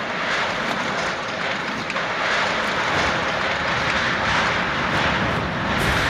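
Strong gale wind sound effect: a loud, steady rushing gust that starts abruptly and grows a little louder after a couple of seconds.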